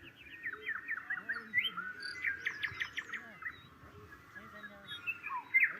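Small birds chirping and singing: a busy run of short rising and falling notes from several birds, with one louder call near the end.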